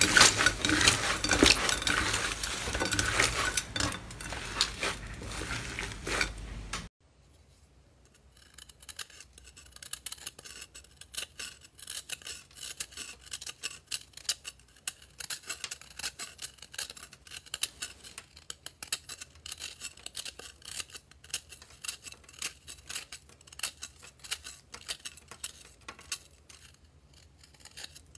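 Thick purple slime squished and kneaded by hand, a loud, wet crackling with many small pops. About seven seconds in it gives way to a quieter, dense crisp crunching as a dry, crumbly green ball is scraped and broken apart with a plastic tube.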